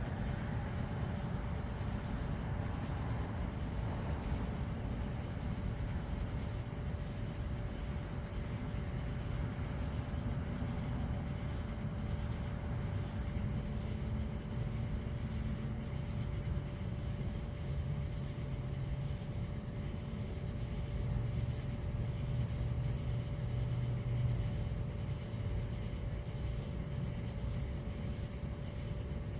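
Steady low rumbling background noise with a faint constant hum, no distinct thunderclap.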